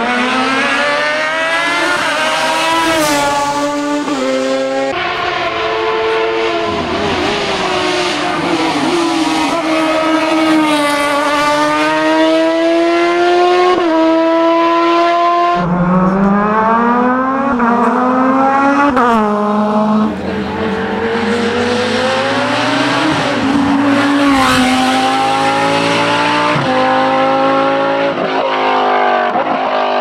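Racing car engines at full throttle, one car after another, each climbing in pitch and dropping sharply at every upshift as it accelerates through the gears.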